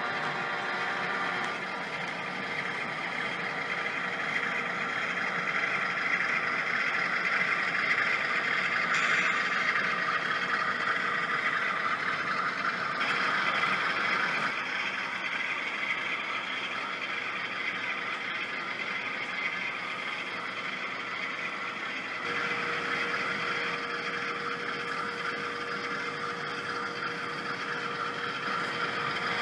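HO-scale model diesel locomotives running on a DCC sound layout: a steady diesel engine drone from the sound decoders as the train rolls along the track.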